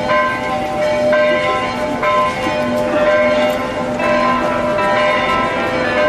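Church bells ringing a peal: several bells strike in turn, roughly once a second, and their overlapping notes ring on.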